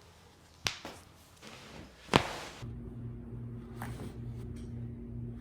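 Sharp joint cracks from chiropractic adjustments: a small pop about two-thirds of a second in and a louder crack just after two seconds. Then a steady low hum begins, with a faint click near four seconds.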